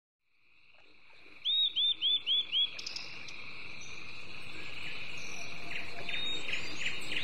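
Outdoor animal chorus: a steady high-pitched trilling fades in from silence, with five quick rising-and-falling chirps about a second and a half in and more scattered calls near the end.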